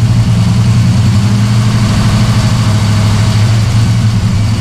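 Car engine running steadily with its electrical loads off during an alternator output check, a loud, even low hum.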